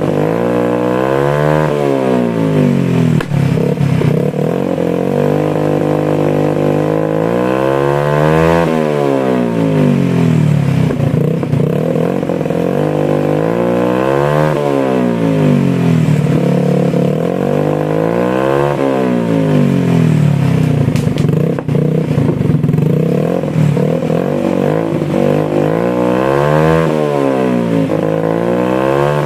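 Motorcycle engine revved repeatedly through its loud exhaust muffler, pitch climbing and falling about five times, roughly every five to six seconds, between idle stretches.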